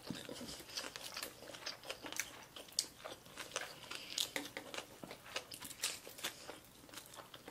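Close-up chewing and biting of sushi, with irregular crunching from the tough, crisp seaweed wrapper of a tobiko hand-roll cone and wet mouth clicks.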